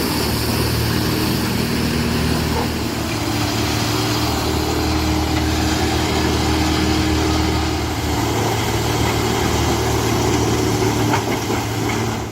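Large machine engine running steadily at a constant speed, with a continuous mechanical rumble.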